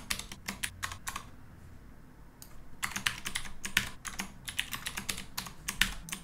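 Typing on a computer keyboard: a quick run of keystroke clicks, a pause of about a second and a half, then a fast, dense run of keystrokes.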